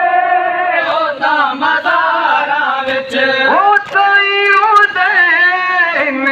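A male reciter singing a noha, a Shia mourning lament, into a microphone: long, held, wavering lines with slides in pitch between phrases.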